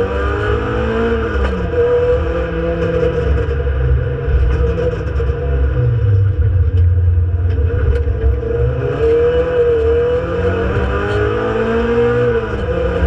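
Renault Clio Sport 2.0 182's naturally aspirated four-cylinder engine under racing load, heard from inside the cabin. Its pitch climbs and falls several times as the car accelerates and the revs drop, with sharp falls about a second and a half in and near the end.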